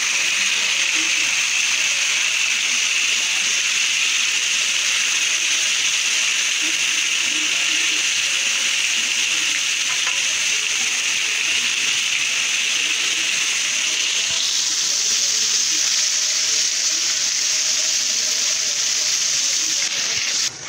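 Whole fish frying in hot oil in a pan, a steady, loud sizzle. About two-thirds of the way through the sizzle turns higher and brighter, and it cuts off suddenly at the very end.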